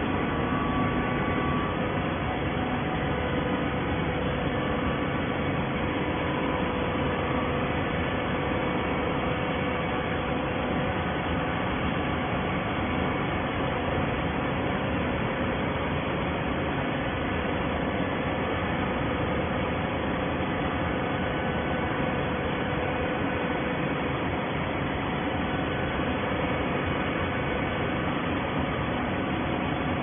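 Horizontal auto-tie baling machine running: a steady mechanical hum and whir with a few constant tones, from its motors and hydraulic drive.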